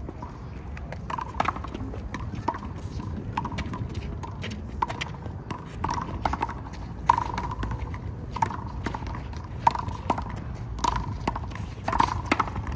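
A handball rally: a small rubber handball is slapped by hand and smacks off the wall and court in irregular sharp hits. Short sneaker squeaks on the court come between the hits.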